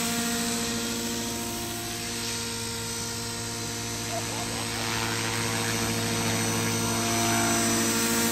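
Beam 450 radio-controlled helicopter in flight, its rotors and motor giving a steady buzzing hum. The hum grows louder in the second half as the helicopter comes lower and nearer.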